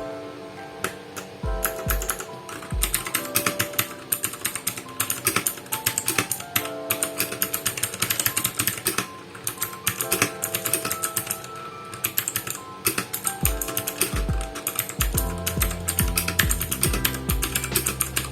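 Fast typing on a Vortex Series VX5 mechanical keyboard with clicky blue switches: a dense, irregular run of sharp key clicks. Background music plays under it, with a steady bass beat coming in about two-thirds of the way through.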